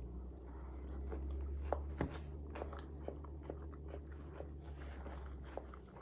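Close-up chewing of crunchy fried pickles, a quick run of crisp crunches and bites with a steady low hum underneath.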